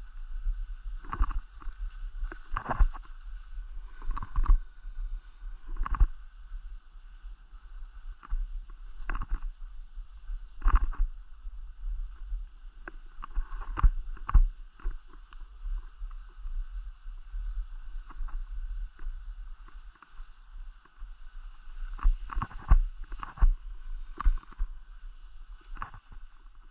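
Skis scraping and hissing over snow in irregular bursts, over a steady low rumble of wind on the microphone.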